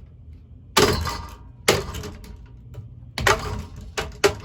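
Cheap ceiling fan spinning with a loose, flailing blade that bangs and clatters in a few loud, irregular knocks over the motor's steady low hum: the blade is working loose and about to break off.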